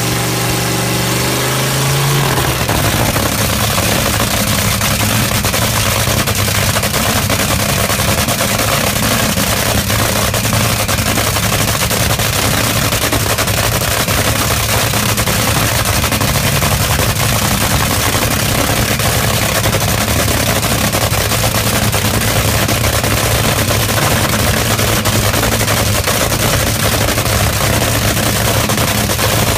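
Top Fuel dragster's supercharged nitromethane V8 running in a warm-up. It starts smoother with its pitch rising slightly, then about two seconds in turns into a harsh, rapid crackling run that stays steady and very loud, a thumping felt on the body.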